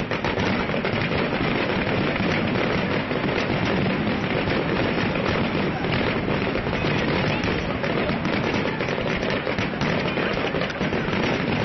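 Fireworks grand finale barrage: a dense, unbroken run of bursts and crackling with no gaps between shells.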